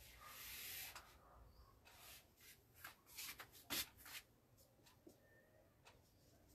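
Faint marker-pen strokes on a whiteboard: a soft hiss at first, then a few short scratches a few seconds in.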